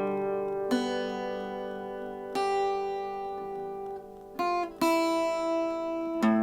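Enya Nova Go SP1 carbon-fibre acoustic guitar: chords strummed one after another, each left to ring for a second or two before the next.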